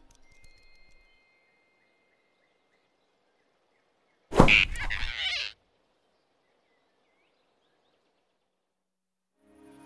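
Animated-film sound effect of a hand snatching a small animal: one sudden whoosh and thump about four seconds in, lasting just over a second. Near silence around it.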